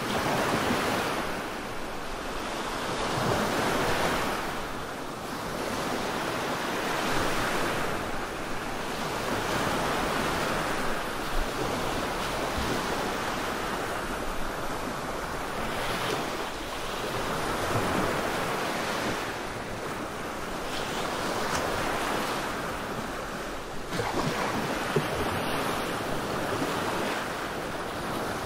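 Sleep-noise track of steady rushing, surf-like noise that swells and ebbs every three to four seconds.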